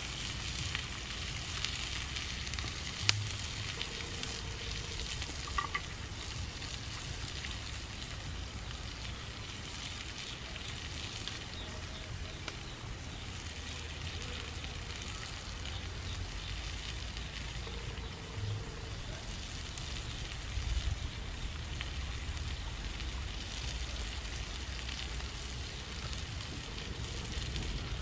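Whole shrimp frying in oil in a clay pan over a wood fire: a steady sizzle, with one sharp click about three seconds in.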